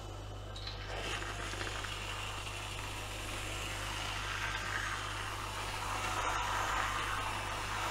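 Aerosol can of squirty whipped cream spraying cream out in a long steady hiss that grows a little louder towards the end.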